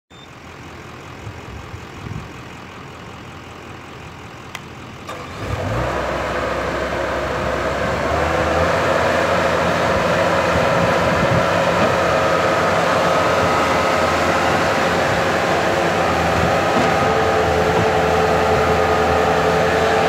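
Bobcat T190 compact track loader's diesel engine coming up to speed about five seconds in, rising over the next few seconds, then running steadily at high revs with a steady whine on top.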